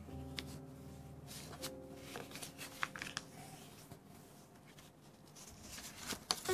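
Sheet of craft paper being handled and smoothed flat by hand: soft rustles and a few short crisp ticks, over faint background music with long held notes that fade.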